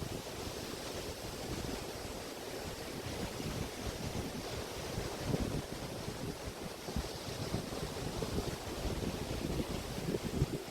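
Small waves of the Río de la Plata estuary washing onto a beach in a continuous wash, with wind gusting on the microphone as an uneven low rumble.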